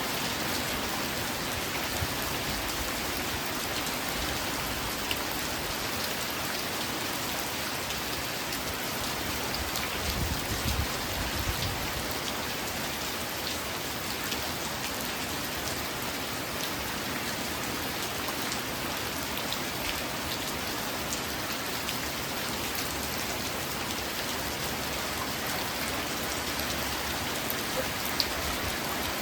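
Steady rain falling: an even hiss with scattered individual drop ticks.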